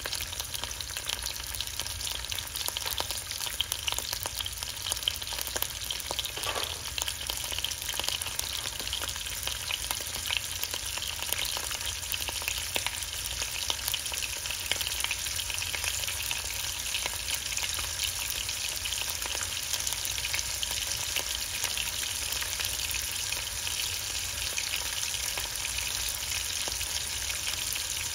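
Sliced onion and green and red bell peppers sizzling in avocado oil in a nonstick pan, a steady frying sizzle dotted with small crackles as they soften.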